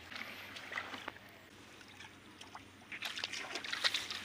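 Hands groping and splashing in shallow muddy water among grass: scattered small splashes and rustles, sparse in the middle and busiest from about three seconds in.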